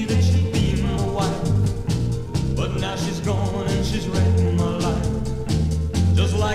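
A teen doo-wop rock and roll record playing from a 45 rpm vinyl single. Singing with vibrato runs over a stepping bass line and a steady drum beat.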